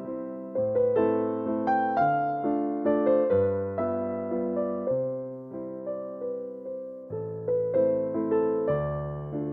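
Background music: a slow, gentle electric piano playing sustained chords.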